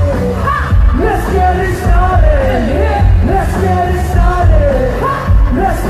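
Loud music with a heavy, pulsing bass beat and a sung melody.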